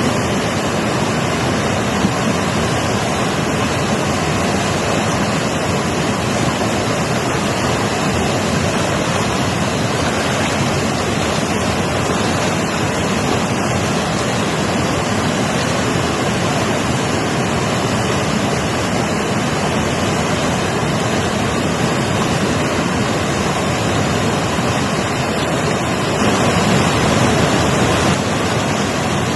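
Mountain river flowing: a steady, even rush of water, a little louder for a couple of seconds near the end.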